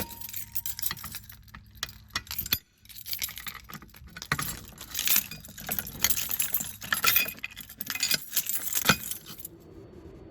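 Small metal objects jangling and clinking in irregular bursts, which stop about a second before the end.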